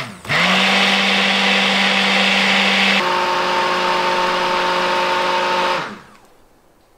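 Handheld immersion blender running in a stainless steel pot of raw soap batter (rendered fat and lye solution) that is nearly at trace. The motor spins up about a third of a second in and runs with a steady whine. Its tone shifts slightly about halfway, and it is switched off near the end, winding down.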